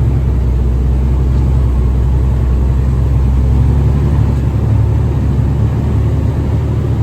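Vehicle engine running steadily with a deep, even rumble.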